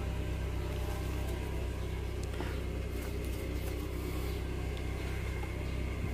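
Steady low machine hum, with a few faint clicks.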